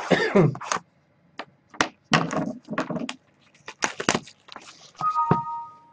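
Foil trading-card packs being torn open and the cards handled, a run of sharp crinkles and crackles.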